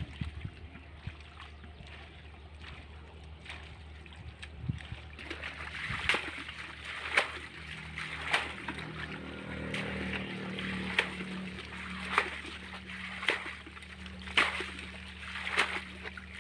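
Muddy water splashing and sloshing as hands scoop and grope in a shallow ditch. The splashes come in sharp strokes about once a second, beginning about five seconds in.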